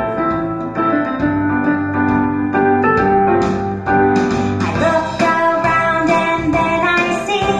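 Music playing, led by a keyboard melody, with a faint voice singing along.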